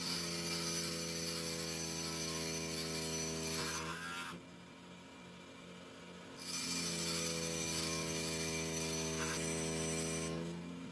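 Power grinder grinding a hardened bearing-steel blank into a pointed thread-cutting lathe tool, in two bouts of about four seconds each with a short pause between them.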